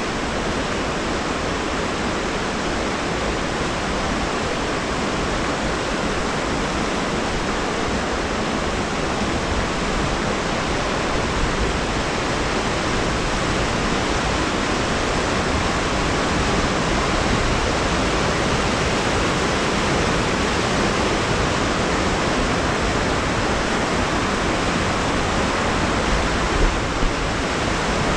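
River water rushing through a canyon: a steady, even rush with no break, growing slightly louder. Two brief faint thumps come near the end.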